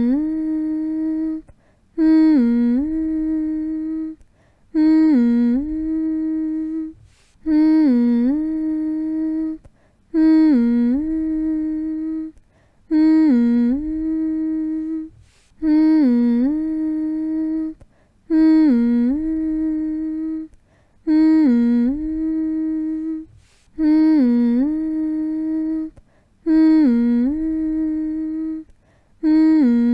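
A human voice humming one long steady note over and over, roughly every two and a half seconds, each hum opening with a quick dip in pitch before settling and separated from the next by a short pause. It is a soothing hum made to lull a baby to sleep.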